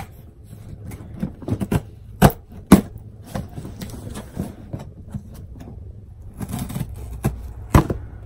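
Cardboard shipping box being opened by hand: flaps pried up and bent back with rustling and irregular sharp cardboard clicks and taps, the loudest about two and a quarter seconds in, again half a second later, and near the end.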